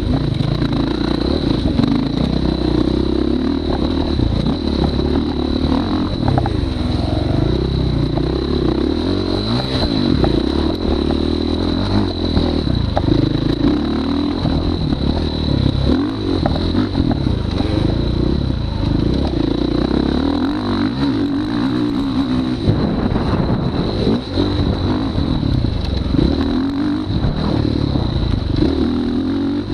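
Off-road motorcycle engine revving up and falling back again and again as it is ridden round a short dirt track, heard from a camera strapped to the rider's chest. A thin, steady high whine sits underneath.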